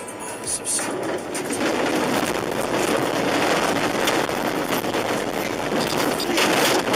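Car running off the road and across rough grassy ground: a loud, dense rumble and rattle of tyres and body over uneven ground that swells about a second in and carries on.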